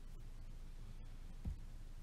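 Faint steady low room hum, with a single soft, dull thump about a second and a half in.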